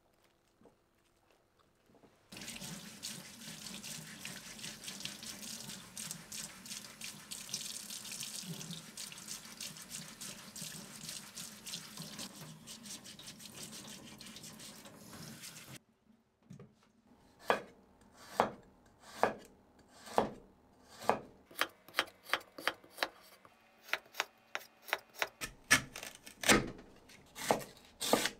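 Kitchen tap running into a sink for about thirteen seconds, then shut off suddenly. After a short pause, a knife chops on a cutting board in separate strokes, about one a second, quickening near the end.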